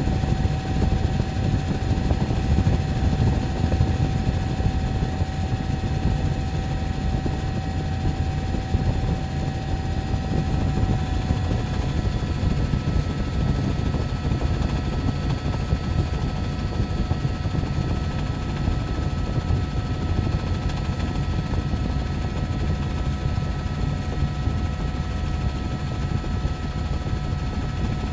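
Helicopter rotor and turbine noise heard from on board, a steady low-heavy drone with thin steady whining tones; one whine fades out about eleven seconds in while a higher one grows stronger.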